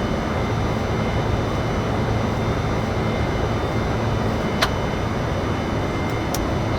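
Steady flight-deck noise of a Boeing 747-400 freighter in its climb: a constant rush of airflow and engines with a faint steady whine, and one sharp click about four and a half seconds in.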